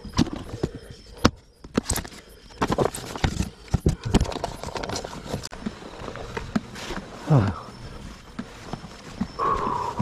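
Knocking and clatter of plastic bait containers being handled, then footsteps through grass and brush. A short, loud sound falls sharply in pitch about seven seconds in.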